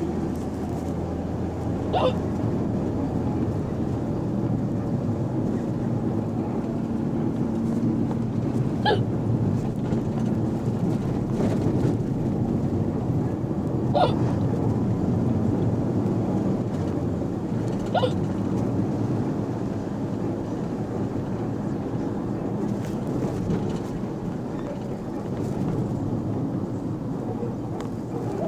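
A person hiccuping four times, several seconds apart, over the steady low rumble of a moving bus.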